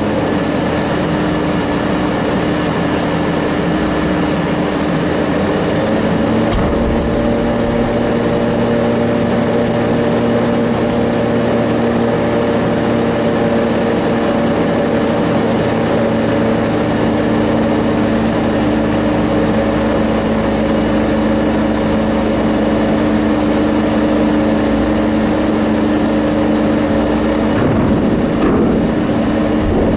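Diesel engine of a rail-mounted tie-handling crane running steadily as its grapple boom moves, its engine note stepping up slightly about six seconds in.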